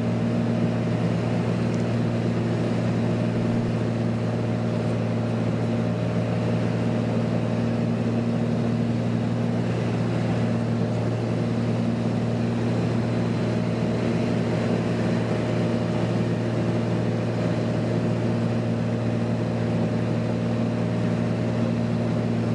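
Light aircraft's piston engine and propeller droning steadily, heard from inside the cockpit.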